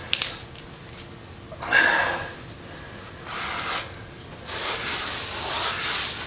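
Paper shop towels rubbing and rustling, in several stretches, with a sharp click just after the start.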